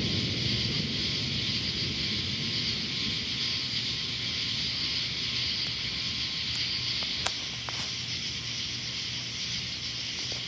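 Steady hiss of heavy rain in a thunderstorm, with a low rumble of distant thunder fading away over the first few seconds. A high buzzing pulses on and off about every two seconds, and a sharp click comes about seven seconds in.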